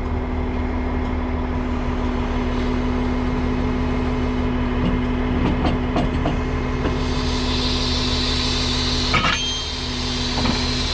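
Heavy wrecker's engine running steadily, with a steady whine from its hydraulics as the underlift lowers the lifted front of a pickup tow truck. A hiss joins about seven seconds in, and about nine seconds in the whine stops with a clank.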